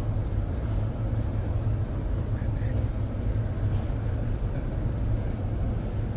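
Steady low rumble of background noise with faint voices in it.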